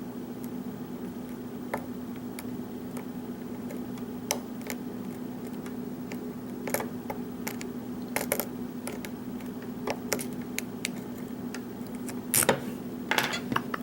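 Small, irregular metallic clicks of a lock pick working the pins of a Schlage pin-tumbler lock under tension while the lock sits in a false set, with a louder flurry of clicks near the end. A steady low hum runs underneath.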